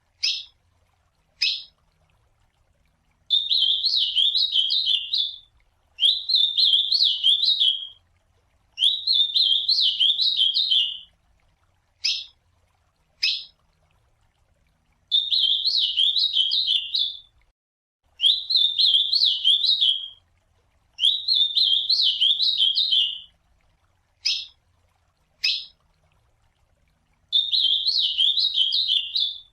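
Ultramarine grosbeak (azulão) singing its warbled song in phrases about two seconds long, repeated seven times with short pauses. Three times between phrases it gives a pair of short, sharp call notes about a second apart.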